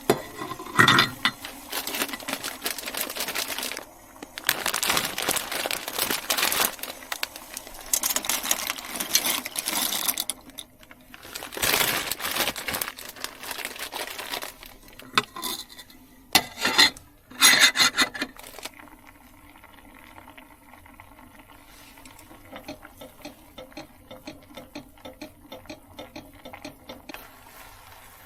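Water running in bursts into a small sink with kitchenware clinking, for most of the first eighteen seconds; after that a quieter, light, steady patter, like rain drumming on the van's roof.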